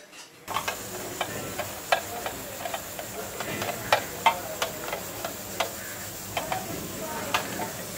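Hands mixing and mashing potato-and-onion paratha filling on a steel plate, starting about half a second in: irregular light clinks and taps of the metal plate, about two a second.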